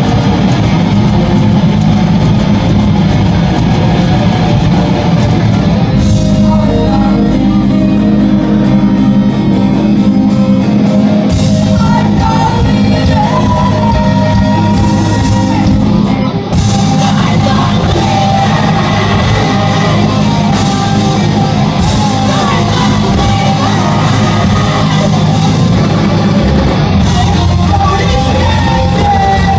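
Post-hardcore band playing live and loud: electric guitars, bass and drums with singing and shouted vocals, heard in a large room. The music drops for a split second about sixteen seconds in, then carries on.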